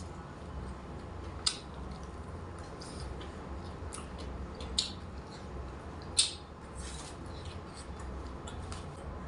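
Eating sounds: soft chewing and crunching of food, with three sharp clicks spread through, over a steady low hum.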